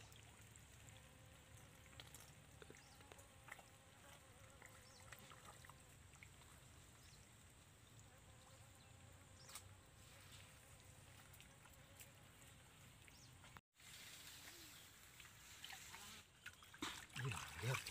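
Faint trickling water in a shallow muddy stream, near silence overall, with a steady faint high hiss. Near the end come louder sloshing and scooping sounds as hands dig in the mud and water.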